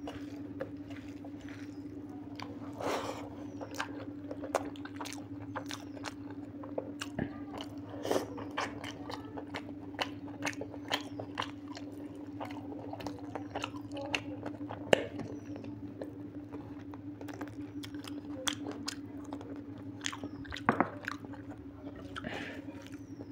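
Close-up eating sounds of mutton curry with rice and dal eaten by hand: chewing and biting into pieces of mutton on the bone, with crunches and fingers mixing rice on a steel plate. A steady low hum runs underneath.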